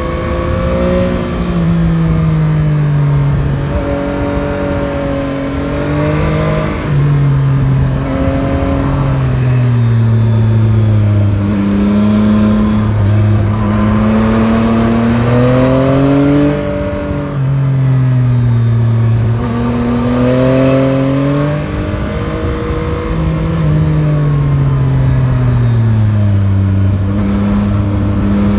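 Yamaha Tracer 9 GT's CP3 inline three-cylinder engine under way, its revs falling off the throttle and climbing again over and over, with several sudden jumps up in pitch as it shifts down. A steady rush of wind noise runs underneath.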